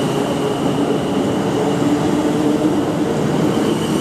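Class 450 Siemens Desiro electric multiple unit pulling out and passing close by, its traction motors giving a steady whine with a thin high tone over the rumble of wheels on rail.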